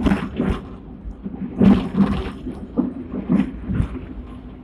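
Sixth-generation Hong Kong tram No. 86 running along its track, heard from inside the lower deck: a steady rumble broken by about seven irregular clanks and rattles.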